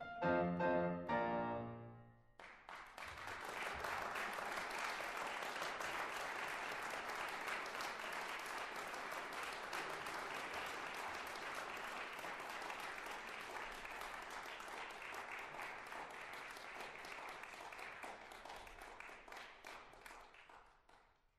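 Piano music ends about two seconds in and gives way to steady applause, which fades out near the end.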